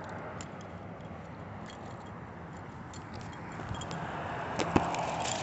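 Handling noise on a phone being carried about: rustling with scattered small clicks, louder in the last two seconds, with a couple of sharp knocks shortly before the end.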